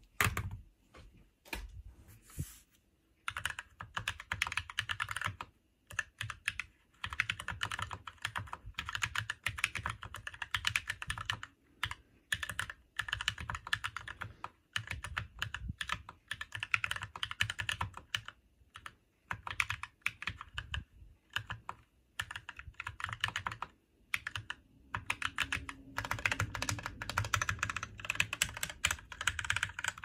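Fast typing on a 40% mechanical keyboard: a dense clatter of key strokes in runs with short breaks. In the first three seconds there are only a few separate clicks and a knock before the typing gets going.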